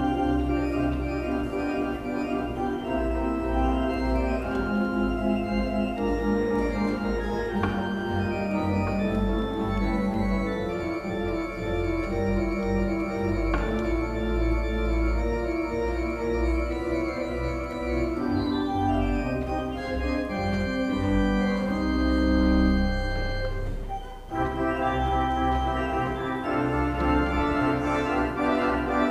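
Whalley & Genung tracker pipe organ playing a prelude: sustained, shifting chords over a strong bass, with a short break between phrases late on.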